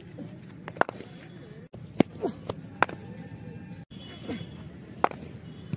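A few sharp, separate knocks of a cricket ball, on bat or on the concrete net pitch, over a low outdoor rumble, with faint voices in between.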